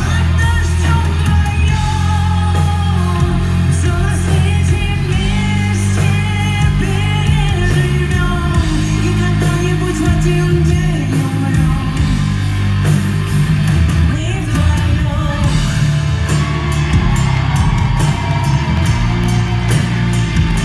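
Live rock band music playing loudly, with heavy bass and electric guitar, and a sung or lead melody over it.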